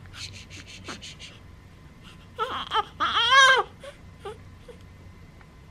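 Newborn baby crying and fussing while a pacifier is held to his mouth: a run of short soft clicks, then a short cry in two bursts about two and a half seconds in, fading to faint whimpers.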